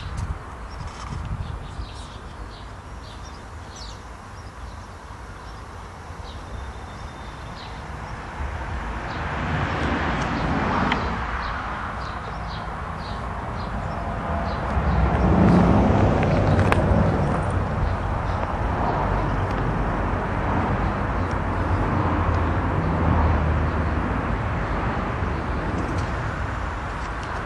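Outdoor ambience: wind rumbling on the microphone and a few bird chirps, with a vehicle passing that swells up and is loudest about halfway through.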